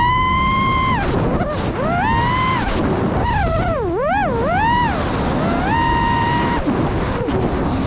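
FPV quadcopter's electric motors whining as the throttle is punched and eased. The pitch climbs to a steady high note, holds it for up to a second, then dips and climbs again several times, over a constant rush of air noise.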